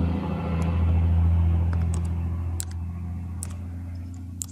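A deep, steady rumble that swells about a second in and then slowly fades, with a few scattered computer keyboard keystrokes as a number is typed.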